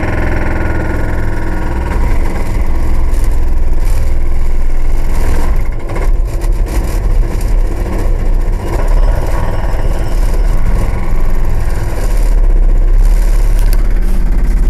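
Excavator's diesel engine running steadily, heard from inside the operator's cab, with a few knocks around the middle. The engine gets louder about twelve seconds in.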